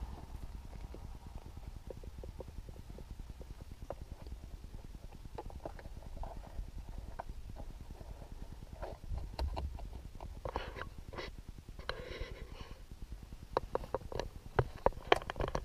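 Scattered clicks, taps and short rubbing noises of a rubber mat being pressed into a plastic storage tray in a car's centre console, over a low steady rumble. The taps come thicker in the second half.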